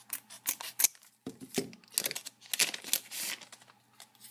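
Scissors snipping across the top of a trading-card booster pack, then the crinkling of the plastic wrapper as it is pulled apart by hand, densest toward the middle and dying away near the end.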